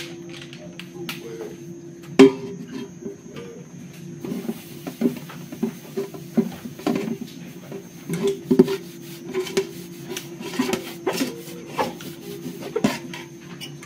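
A spoon scraping and clinking against a large metal bowl as grated-corn batter is scooped out and poured into corn-husk cups, with irregular knocks and scrapes and one sharp knock about two seconds in, over a steady hum.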